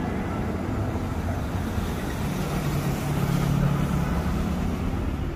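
Steady low drone of a motor vehicle's engine with traffic noise, the hum growing a little louder about three seconds in.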